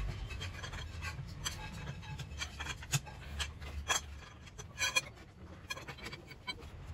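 Scattered short clicks and knocks of a wrench being worked on a car's front-wheel lug bolts to slacken them, with a low rumble at the start.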